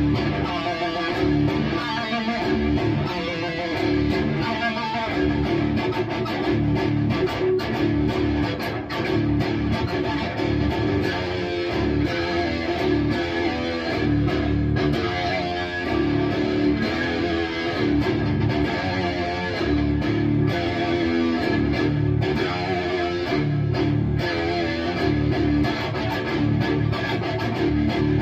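Electric guitar through a Bogner Uberschall high-gain preamp module, playing heavy, distorted metal riffs with choppy low-end rhythm.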